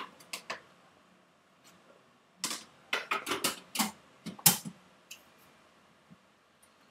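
Sharp plastic clicks and knocks as a white electric food chopper is loaded with herbs and its lid and bowl are fitted, a quick cluster of them in the middle. The chopper's motor is not yet running.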